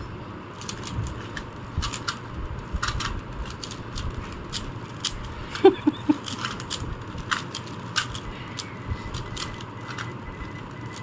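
Plastic 3x3 Rubik's cubes being turned fast by hand: irregular quick clicks and clacks of the layers snapping round.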